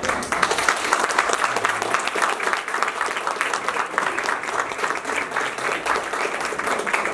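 Applause: a group of people clapping, a dense patter of claps that keeps going.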